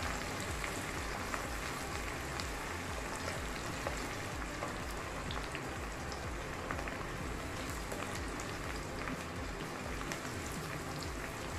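Sliced onions frying in hot mustard oil in a kadai: a steady sizzle with many small crackling pops.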